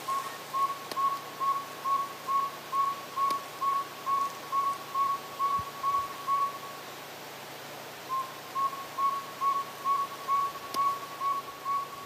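Northern saw-whet owl giving its advertising call: a long series of evenly spaced, single-pitched toots, about three a second. The series breaks off for about a second just past halfway, then resumes.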